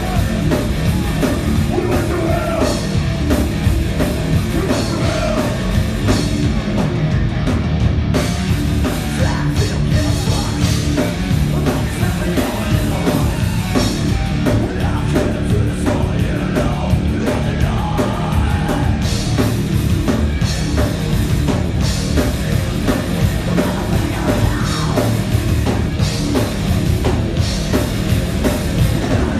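A heavy rock band playing live and loud, with a drum kit pounding and yelled vocals.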